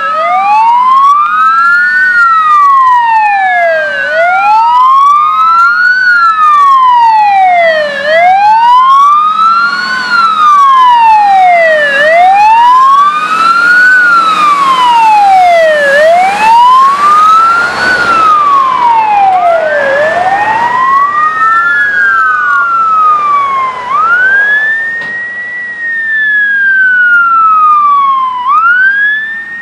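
Sirens on Tatra 148 CAS 32 fire tenders wailing. The main one rises and falls about every four seconds, from low to high pitch and back, and a second, higher-pitched wail takes over in the last third. The truck's air-cooled V8 diesel is heard under the sirens as it passes close, a little past halfway.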